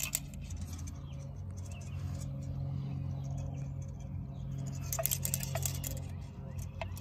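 An empty aluminium beer can being picked up and turned over in the hand: a few light metallic clicks and crinkles, over a steady low hum.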